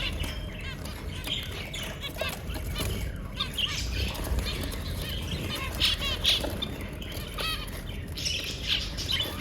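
Small birds chirping and twittering continuously in many short, high calls, over a steady low rumble.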